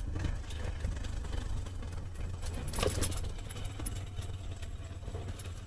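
Motorcycle engine running steadily at low speed on a broken, potholed road, with a low rumble under it. A short clatter comes about three seconds in.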